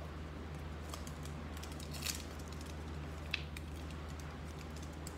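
Faint rustling and a few sharp clicks of trading-card packs and their packaging being handled, over a steady low hum; the sharpest clicks come about two seconds in and again a little past three seconds.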